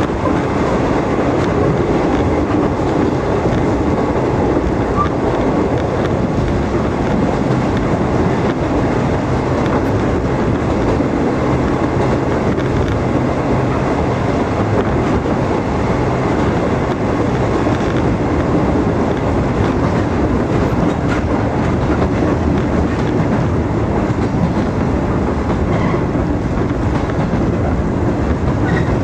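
Steady running noise of a Chikuhi Line train heard from on board the passenger car: a constant rumble of wheels on rails at speed, with no breaks or changes.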